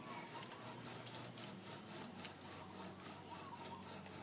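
Window screen soaked in primer scrubbed rapidly back and forth around a rusty metal pipe: an even, rasping rub of repeated strokes as the screen sands the rust while laying on primer.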